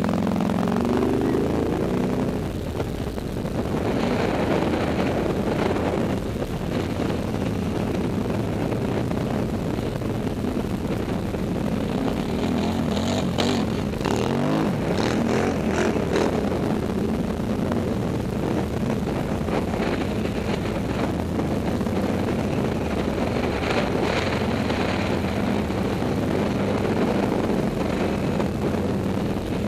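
Several quad bike (ATV) engines running, with the nearest one revving up and down as the ATVs ride off over rough ground.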